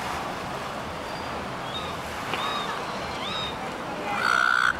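Silver gulls calling: a few faint short calls, then one loud, high call of about half a second near the end, over a steady outdoor background hiss.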